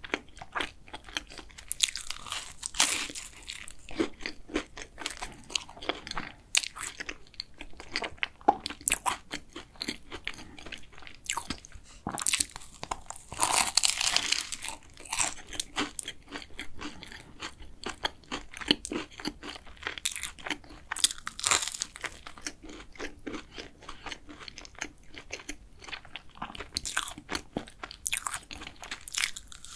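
Close-miked eating of a flaky matcha-filled cruffin: crisp pastry crunching at each bite, with chewing in between. The loudest, densest crunching comes about fourteen seconds in.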